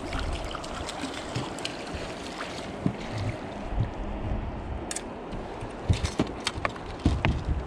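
Steady rush of wind and river water, with a cluster of sharp knocks and rattles in the second half as the landing net holding a walleye is swung aboard and set down on the aluminum boat's deck.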